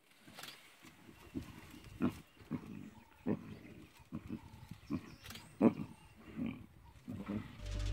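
Lionesses growling and snarling in short, repeated bursts while feeding at a kill.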